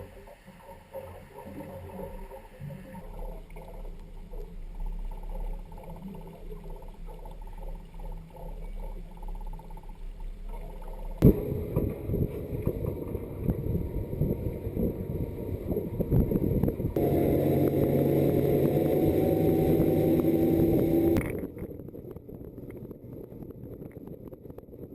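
A boat's motor running, with water and wind noise. It is quieter at first and turns suddenly louder a little before halfway. Later a steady engine tone joins, and it cuts off abruptly a few seconds before the end.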